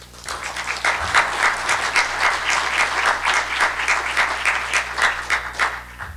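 Audience applauding: a dense round of clapping that stops suddenly near the end.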